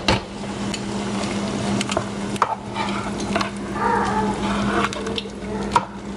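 A plastic ladle dropping rice into a pot of brothy chicken soup and stirring it: liquid sloshing, with scattered knocks of the ladle against the pot. A steady low hum runs underneath.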